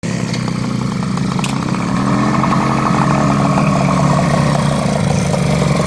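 Ossa trials motorcycle's two-stroke single-cylinder engine running at low revs while ridden slowly on grass. The revs rise a little and ease back in the middle.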